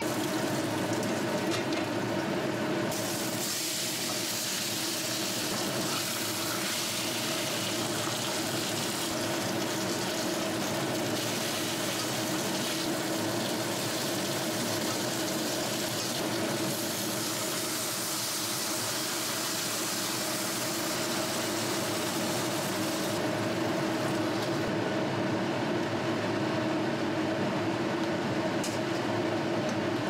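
Whole sea bass sizzling steadily in oil in an iron wok, pan-frying over medium heat, with a steady hum underneath.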